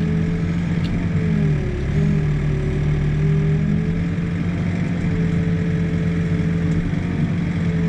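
Excavator's diesel engine running steadily while the boom and bucket are worked into a footing hole, heard from inside the operator's cab. The engine note dips briefly about a second and a half in, then settles back.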